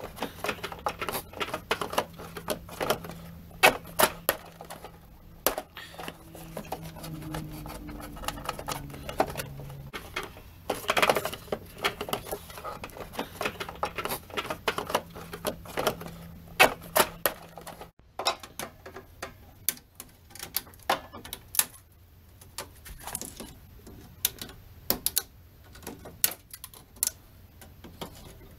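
Irregular clicks, clacks and light knocks of plastic clips, connectors and metal parts being unclipped and handled while an engine bay is stripped.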